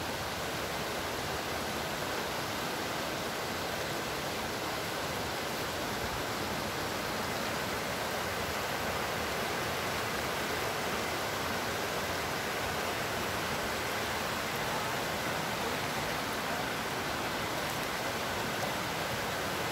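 Rocky forest stream rushing over stones and small rapids: a steady, even rush of water.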